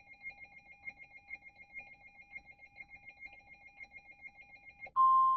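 Faint, rapidly pulsing electronic tones at a few fixed pitches, then near the end a loud, steady single-pitch beep starts: the 1050 Hz NOAA Weather Radio warning alarm tone that comes before a broadcast alert.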